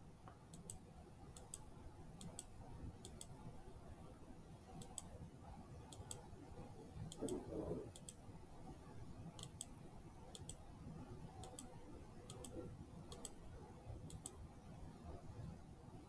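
Computer mouse clicking: quick press-and-release pairs of clicks at an irregular pace, about one pair every second, as anchor points are set one after another with the pen tool.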